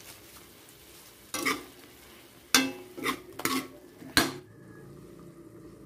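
A cooking utensil scraping and clanking against a steel wok as eggplant and pork are stirred, about five sharp strikes in the middle, over a faint frying sizzle.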